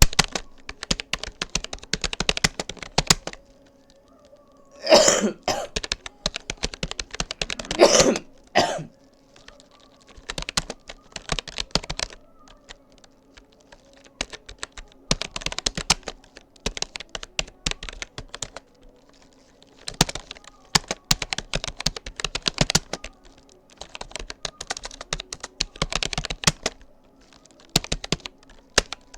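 Rapoo computer keyboard keys clicking in bursts of fast typing, with short pauses between bursts. Two louder coughs break in about five and eight seconds in.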